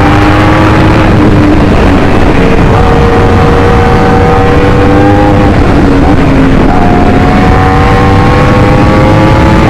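Yamaha R1's crossplane inline-four engine running under way, its pitch creeping slowly upward, with brief dips in the note about 2 seconds and 6 seconds in.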